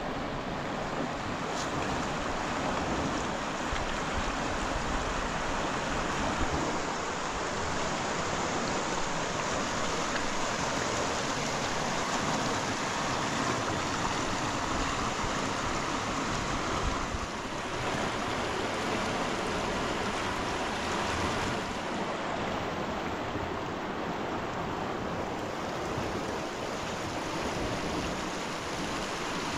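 Steady rushing water noise at the water's edge, even and unbroken throughout.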